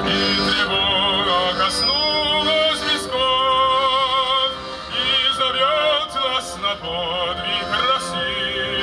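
A man singing in an operatic style with strong vibrato, accompanied by an accordion's sustained chords.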